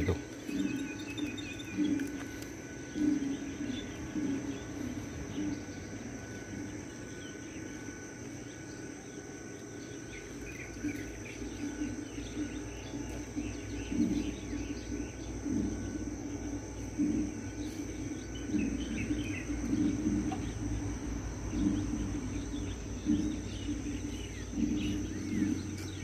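Insects chirring steadily, with a few short bird chirps and some irregular low bumps.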